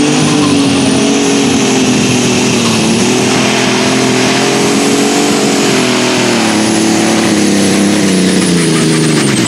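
Modified John Deere 4240 super stock pulling tractor's turbocharged diesel engine running flat out under load as it pulls the sled, with a high, steady turbo whine over the engine note. The engine note sags briefly about a third of the way in, and near the end the revs and whine drop sharply as the tractor comes off the throttle.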